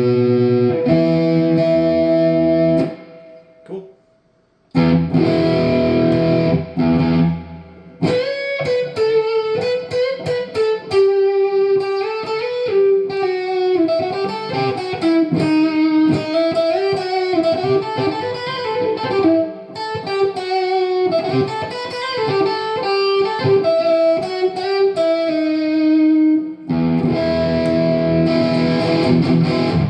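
Gibson 2014 Les Paul Standard Premium electric guitar with Burstbucker pickups being played through an amplifier. Held chords ring out, with a brief break about three to four seconds in. From about eight seconds a long run of single-note lead lines plays, and another held chord closes the passage.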